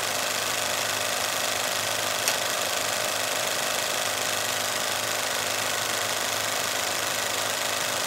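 Cinema film projector running: a steady mechanical whirr with an even hum underneath, and a single sharp click about two seconds in.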